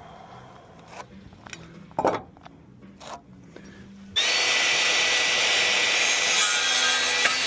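A few light knocks, then about four seconds in a power saw starts suddenly and runs loud and steady with a constant whine, cutting a wooden framing rafter to length.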